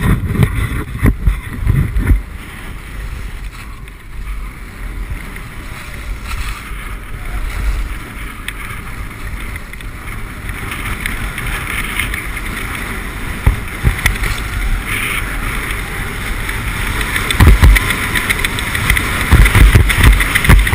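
Skis hissing and scraping over packed snow on a fast downhill run, the hiss growing louder about halfway through. Wind buffets the camera's microphone in low rumbling gusts, heaviest near the start and in the last few seconds.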